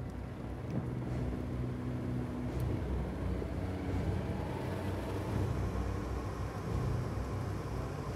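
Vehicle engine running, heard as a steady low rumble.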